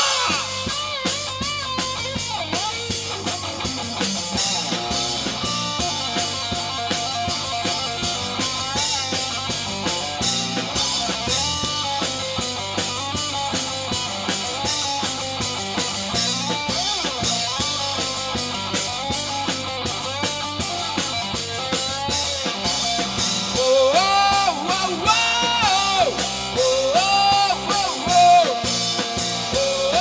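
Live rock band playing: electric guitars, bass guitar and a drum kit. The middle stretch has no singing, and the lead vocal comes back, louder, about three-quarters of the way through.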